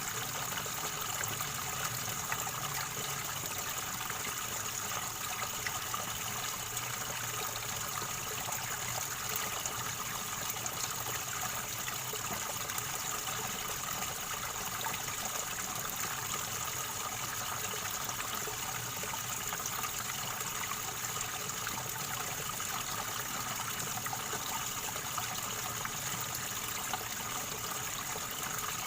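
River water running and gurgling over stones, a steady, unbroken trickling flow.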